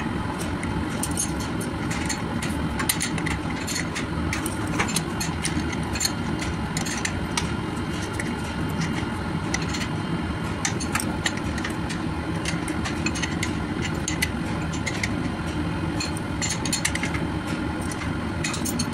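Steady machinery hum, with frequent light, irregular clicks and clinks of a wrench working the bolts of a plastic pipe flange.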